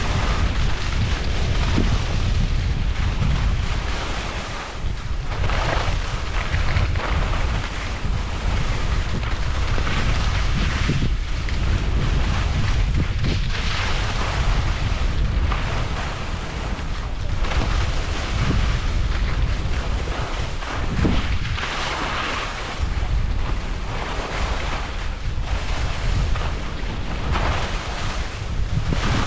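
Wind buffeting the microphone at downhill speed, a steady low rumble, with the hiss of edges scraping across packed, tracked snow swelling every few seconds as the rider turns.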